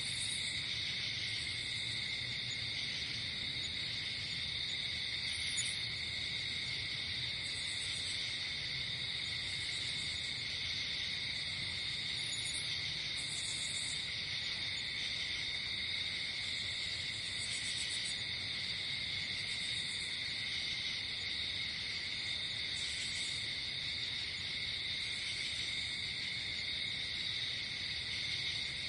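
Night insect chorus of crickets: a steady, even trilling, with short, higher chirping trills breaking in every second or two.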